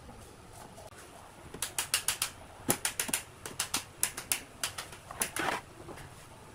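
Loose wooden bed slats clacking and knocking against each other and the frame as they are pushed together and shifted by hand: a quick run of sharp clatters from about a second and a half in, ending with a short scrape.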